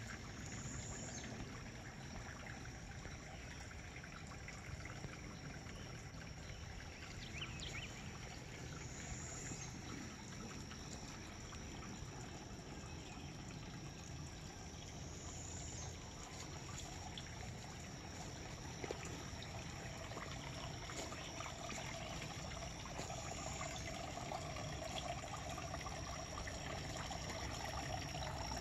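Faint, steady outdoor background noise with a thin, high, steady tone throughout and a few faint short chirps; the noise grows a little louder near the end.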